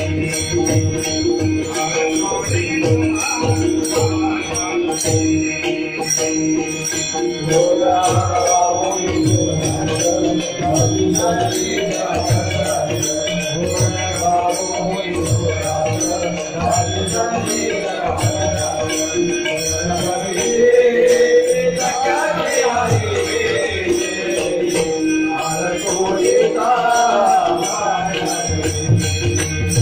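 Marathi abhang bhajan music: a steady drone with a regular drum beat and jingling cymbals. A melody that bends in pitch comes in about eight seconds in.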